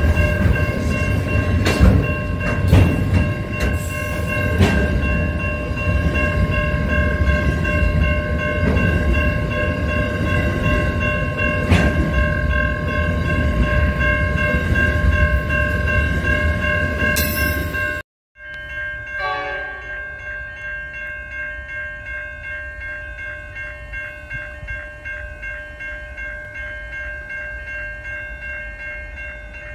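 Freight train wagons rolling through a level crossing: a heavy rumble with several loud metallic clunks. Over it the crossing's warning bell rings steadily. About 18 seconds in the rumble cuts off suddenly, and the crossing bell goes on ringing, quieter, as another train approaches.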